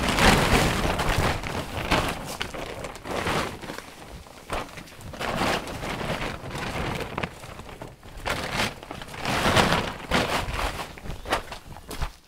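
Green plastic builder's tarpaulin being shaken out and spread on the ground, rustling and crackling in irregular swells, with footsteps on the sheet as it is straightened.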